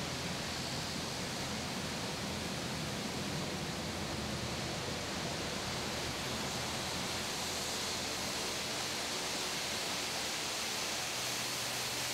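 Steady, even hiss with a faint low hum underneath: the room tone of a large aircraft hangar.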